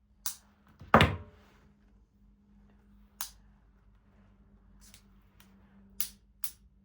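Leatherman Arc multitool being handled: a series of sharp clicks, its blade and tools snapping open and shut, with one louder knock about a second in that rings briefly.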